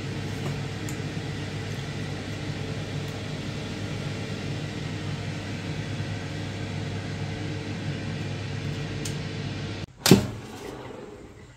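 Air fryer running with a steady hum, which cuts off abruptly about ten seconds in, followed at once by a single loud clunk.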